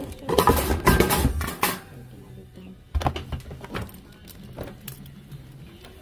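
Rustling and rubbing handling noise from a phone being jostled in the hand, loudest in the first couple of seconds, followed by a few lighter knocks about three seconds in.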